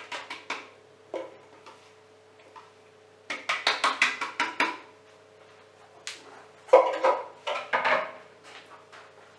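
Plastic food processor bowl tapped and knocked to shake chopped walnuts out onto a baking tray: quick runs of taps in three bursts, the last one loudest.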